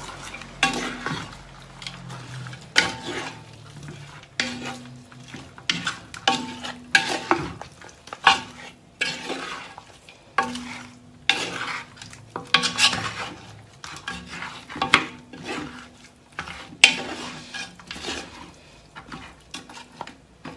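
A spoon scraping and knocking around a metal pot as chicken is stirred together with its seasonings. The strokes are irregular, roughly one a second, and the pot rings briefly after each.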